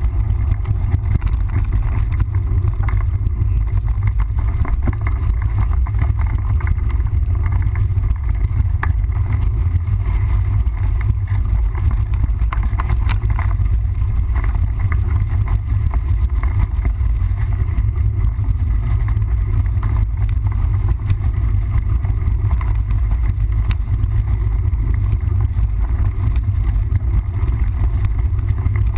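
Steady wind buffeting and low rumble on the microphone of a camera carried on a mountain bike while riding, with scattered light clicks and rattles.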